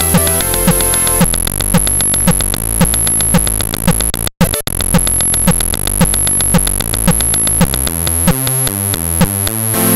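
ZX Spectrum chiptune: a square-wave bass line with short clicky drum hits, the higher melody channels dropping out about a second in and coming back near the end. A steady high-pitched ringing tone sits over it, and the music cuts out for a split second about four seconds in.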